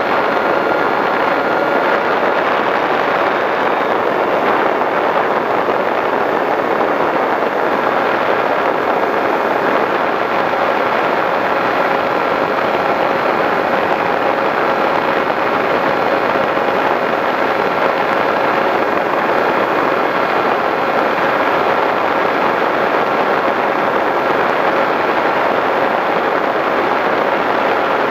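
Skywalker v6 FPV plane's 910kv brushless electric motor and propeller running at a steady cruise, heard through the onboard camera's microphone as a loud, even rush of airflow with a faint steady motor whine.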